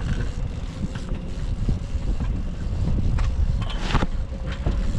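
Wind buffeting the microphone over the steady hum of a boat's motor running at trolling speed, with a few sharp knocks about three to four seconds in.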